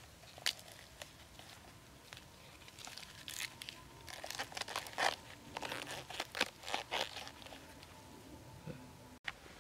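Green bamboo tube being worked by hand: irregular crackling, tearing and snapping as thin strips of bamboo are pulled and split off its end, busiest in the middle.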